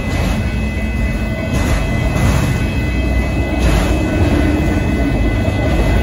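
Freight train of autorack cars rolling past at a grade crossing: a steady loud rumble and rattle of wheels on rail. Two steady high ringing tones run through it throughout, fitting the crossing signal's bell.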